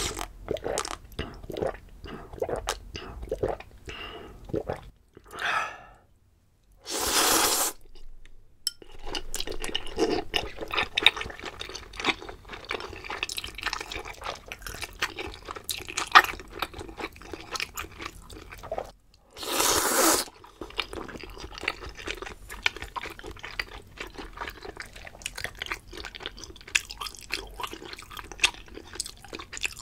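Close-miked eating: a few gulps of barley tea, then chewing with wet clicks and crunches. Two loud slurps of udon noodles come about 7 seconds in and again around 19 seconds.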